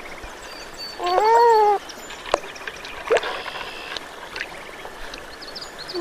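An animal's single drawn-out call, rising then falling in pitch, about a second in, over a steady trickle of water. Two sharp clicks come near the middle, with faint high chirps scattered throughout.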